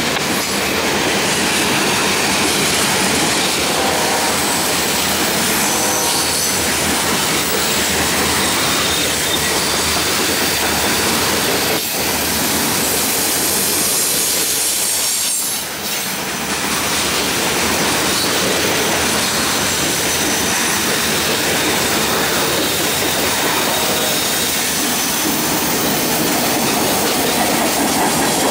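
Freight cars of a CSX manifest train rolling past at trackside: a steady rumble and clatter of steel wheels on the rails, with thin high-pitched wheel squeal coming and going. The noise dips briefly about halfway through.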